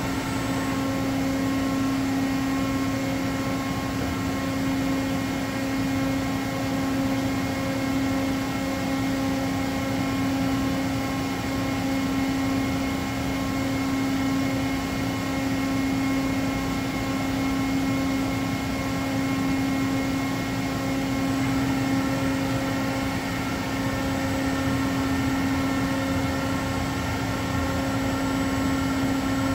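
Doosan DCM 2740 CNC bridge mill running under power: a steady machine hum with one strong low tone and several fainter higher tones.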